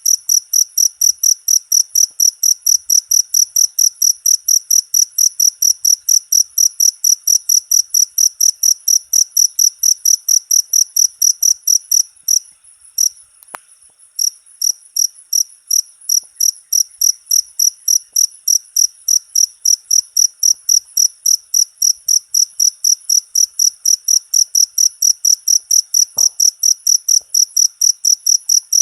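Cricket chirping: a steady, even train of high-pitched chirps about three a second, pausing for a second or so around the middle.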